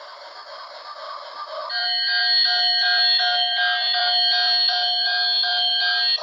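Electronic alarm-like tone: several steady pitches sounding together and pulsing about two to three times a second. It starts about two seconds in and cuts off sharply near the end.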